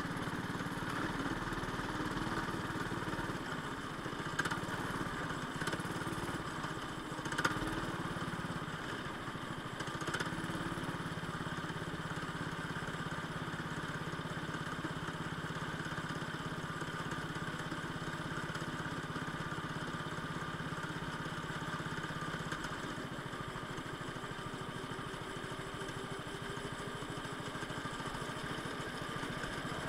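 Go-kart engine running on track, heard from on board: a steady drone with slight rises and falls in pitch. A few short clicks and knocks sound between about four and ten seconds in, the sharpest about seven seconds in.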